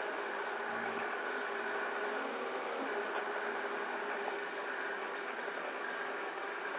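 Steady background hiss and hum with faint, rapid high-pitched ticking; no speech.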